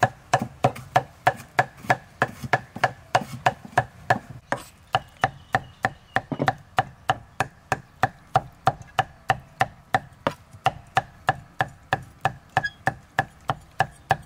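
Steel cleaver chopping dried red chillies on a thick round wooden chopping block: a steady run of sharp knocks, about three to four a second.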